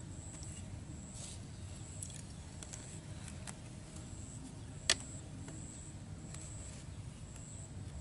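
Thin bamboo sticks being handled and knocked together, giving a few light clicks and one sharp click about five seconds in.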